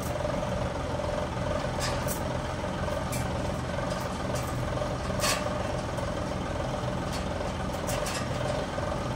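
Sawmill machinery running steadily: a low engine hum under a constant whine. A few short sharp clicks come about two seconds in and again near the end, and there is a brief hiss about five seconds in.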